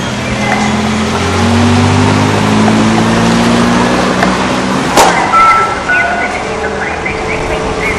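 A car engine passing close on a cobblestone street: its note rises and grows louder for a few seconds, then fades. A single sharp knock comes about five seconds in.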